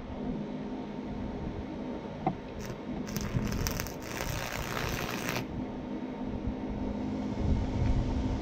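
Wire-feed welder arc crackling and sizzling as a short weld is run on steel angle iron, for about three seconds in the middle, over a steady low hum.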